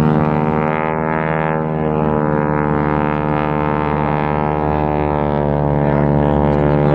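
North American T-6 Texan's nine-cylinder Pratt & Whitney R-1340 Wasp radial engine and propeller in a low display pass, a loud, steady drone rich in harmonics.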